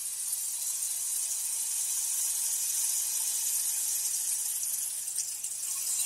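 Steady high-pitched hiss with a faint low hum underneath, even throughout with no distinct events.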